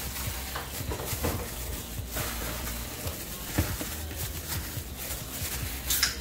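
Raw seasoned chicken thighs being mixed by a plastic-gloved hand in a plastic bowl: an irregular run of wet squelches and soft slaps as the pieces are turned over.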